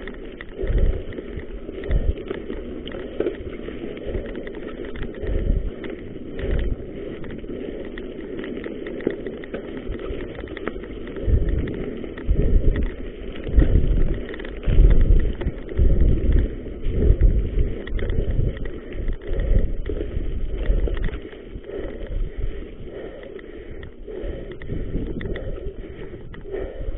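Mountain bike riding fast down a dirt forest singletrack: tyres rolling over dirt and stones, and the bike rattling over bumps. Irregular low rumbles of wind buffet the microphone, heaviest in the middle stretch.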